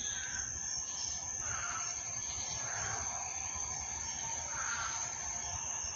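Crickets and cicadas trilling in one steady high chorus. Faint, short, lower swells come and go every second or two beneath it.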